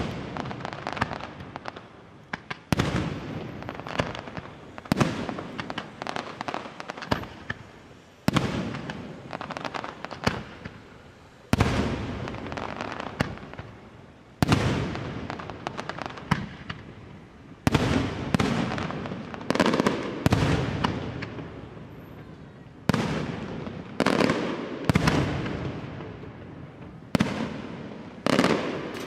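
Aerial firework shells bursting in a steady succession, a sharp boom every one to three seconds, each rolling away in a long echo before the next.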